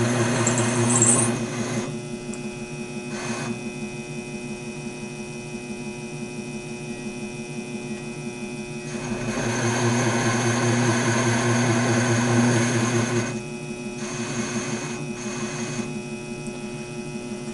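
Taig lathe running with a steady motor hum while a ball turning tool cuts a small ball on the spinning bar. A harsher cutting noise rises over the hum during the first two seconds and again from about nine to thirteen seconds in.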